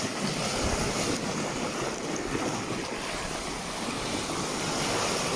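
Steady rushing of a fast, swollen, muddy river in flood, its water running high with a strong current.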